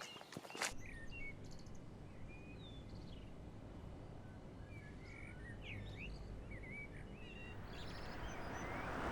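Small birds chirping repeatedly over a steady low outdoor rumble, after a few footsteps at the very start. Near the end, a rushing noise swells up.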